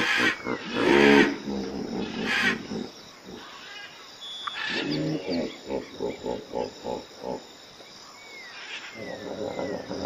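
Hippopotamus grunting: loud rough calls in the first second or so, then a quick run of pulsed grunts, about four a second, around the middle.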